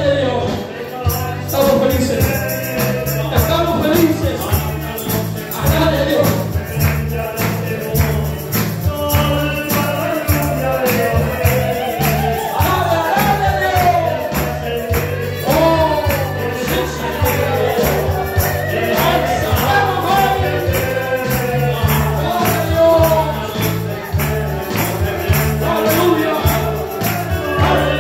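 Christian praise song played and sung live: voices singing over a steady beat of bass and drums, with a tambourine shaking through it.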